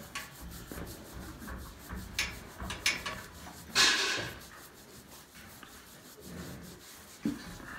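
A hand scratching and rubbing a bull's thick hairy coat: a rough, rustling scrape, with a louder short rush of noise about four seconds in.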